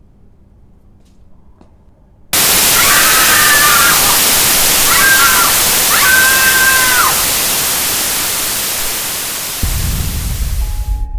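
A quiet stretch, then a sudden blast of loud static hiss: a horror-film jump-scare sound effect, with a few wavering shrill cries heard through it. A low rumble comes in near the end.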